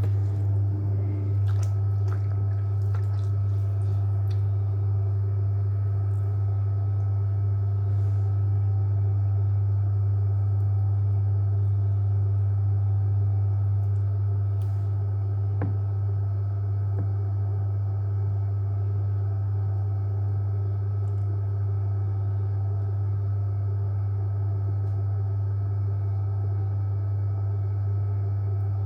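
JW Ratcliffe electric pottery wheel's motor humming steadily at reduced speed, with faint wet squelches of clay under the hands and a few light clicks in the first few seconds.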